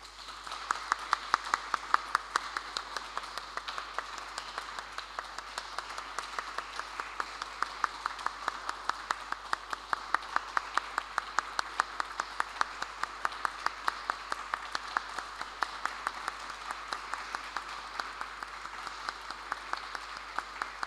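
Audience applauding steadily, with individual sharp claps standing out from the dense clapping.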